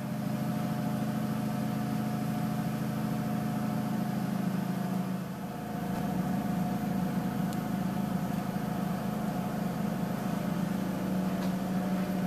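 Hydraulic power unit of an Alpha 60-ton powder compacting press running: electric motor and hydraulic pump giving a steady hum.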